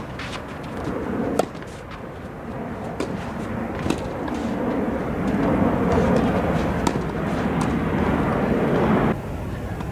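Tennis ball being struck by rackets during a rally, a sharp pock every second or so, with the ball bouncing on the court. Beneath it a steady low rumble that grows louder in the second half and drops off abruptly about nine seconds in.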